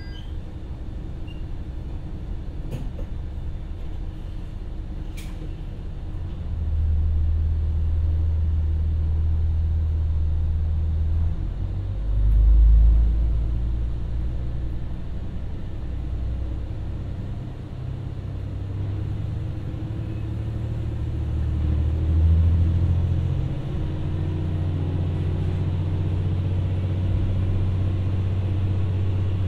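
Diesel engine of an Ibara Railway IRT355 railcar, heard from inside the car: idling at first, then opening up about six and a half seconds in as the car pulls away. The engine note climbs in louder surges with brief dips between them as the car gathers speed.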